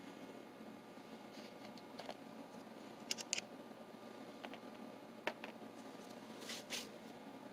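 Light clicks and taps of small metal mortise-lock parts being handled on a bench, a few scattered strikes, with a short rustle near the end over a faint steady hiss.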